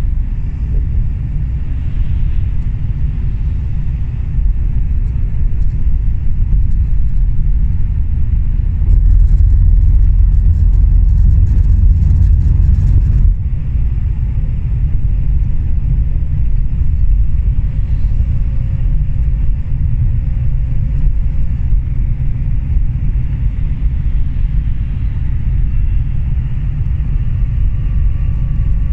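Steady low rumble of a long-distance coach bus at highway speed, heard from a passenger seat inside: engine and tyre noise. It grows louder for a few seconds and drops back suddenly about halfway through.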